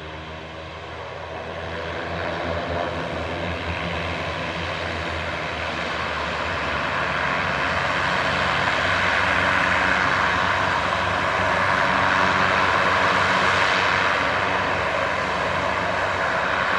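Twin Pratt & Whitney PT6A turboprop engines of a Beechcraft King Air C90GTx running as it taxis, growing steadily louder. A turbine hiss builds over the engine hum from about halfway through.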